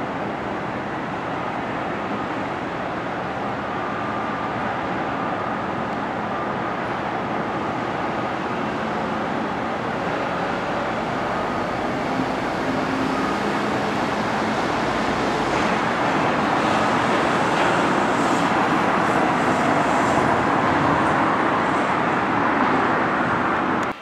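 Steady vehicle or traffic noise, growing a little louder in the second half and cutting off abruptly at the end.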